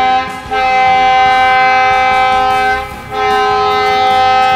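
Train horn sounding in long held blasts, a chord of steady tones that breaks off briefly about half a second in and again about three seconds in. A stopped train is sounding it because the level-crossing gates have not been closed.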